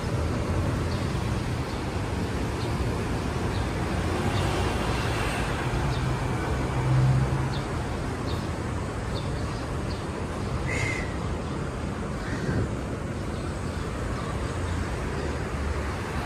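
Steady city traffic noise, a continuous low rumble, with a brief louder low hum near the middle as a vehicle passes. Scattered faint ticks and a short high chirp about two-thirds of the way through.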